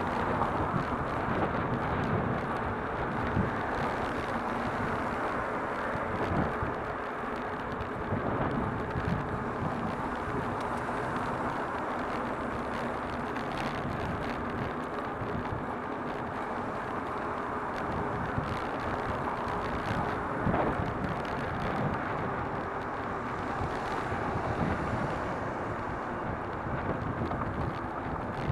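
Bicycle riding through city traffic: a steady rush of wind on the camera microphone and tyres on asphalt, with passing cars, a faint steady hum and occasional short knocks.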